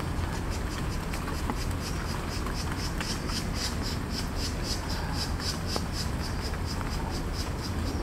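An insect chirping in a fast, even, high-pitched pulse, about four to five beats a second, over a low steady rumble.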